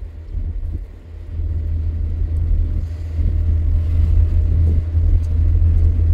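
A car driving, heard from inside the cabin: a steady low rumble of engine and road noise, growing louder about a second in.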